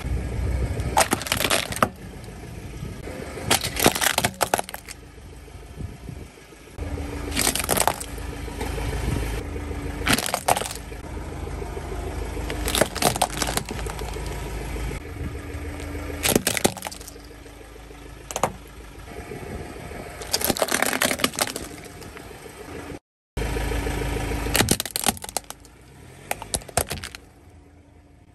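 Hard plastic toys cracking and snapping under a car tyre rolling over them on asphalt, a string of sharp cracks over the low rumble of the tyre and car.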